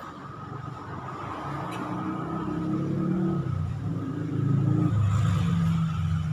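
An engine running, its pitch shifting as it grows louder over a few seconds, over a steady high hum.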